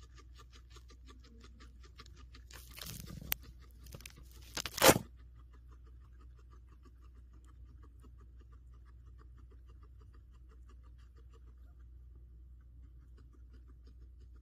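Guinea pig chewing, a fast even clicking of about six or seven chews a second, broken about three to five seconds in by a loud rustling crunch.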